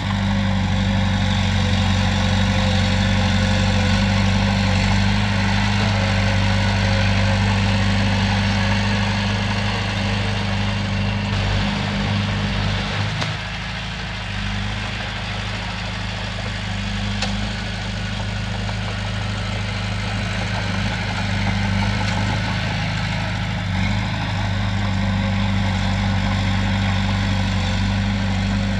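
Komatsu bulldozer's diesel engine running steadily with a deep hum. It eases off slightly about halfway through and picks up again near the end.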